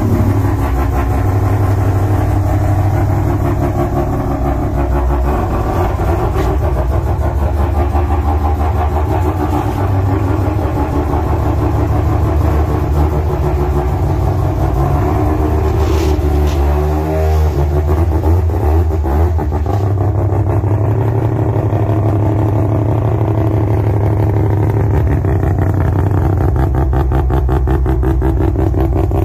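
Suzuki ST20 Carry pickup's two-stroke three-cylinder engine running with its characteristic 'truntung' burble, revved up and back down briefly about halfway through.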